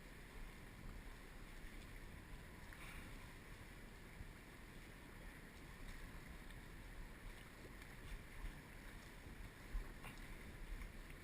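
Faint, steady low rumble of wind on the microphone, with a couple of faint ticks.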